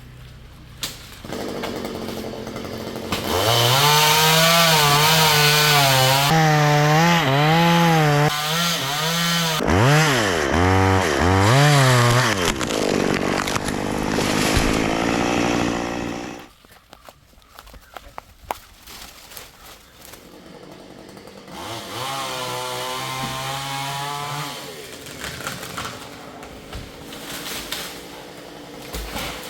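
Stihl two-stroke chainsaw running at high speed, its pitch swinging up and down under the throttle. It winds down and stops about 16 seconds in. A few seconds later it runs again briefly at a lower, steady speed.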